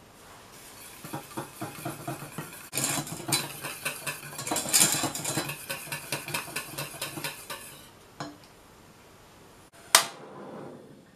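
Wire balloon whisk beating instant coffee, sugar and water into a paste in a stainless steel saucepan, its wires clattering rapidly against the pan. A short knock follows as the whisk is set down, then a portable gas stove's igniter gives one loud click and the burner lights with a brief rush of flame.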